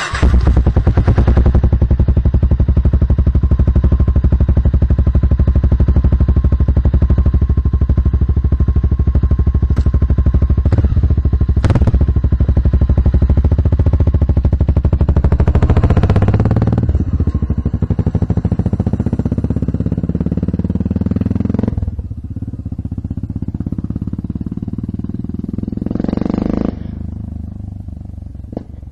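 Honda FMX 650's single-cylinder engine through open Giannelli exhausts with the dB-killer baffles removed. It fires up and idles loudly, is revved once about halfway through, then pulls away and fades out near the end.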